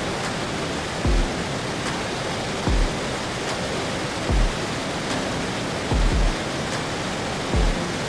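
Steady rush of a waterfall with background music laid over it; the music's deep, falling kick drum lands about every second and a half.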